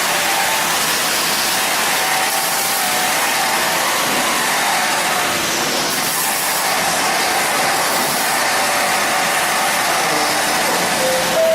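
Steady, continuous hiss of a welding or cutting arc, holding an even level throughout.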